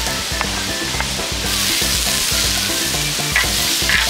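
Chopped onion starting to sizzle on a hot multi-griddle pan over a gas burner, the hiss swelling sharply about a second and a half in as the onion goes onto the pan. A metal spatula scrapes across the pan twice near the end.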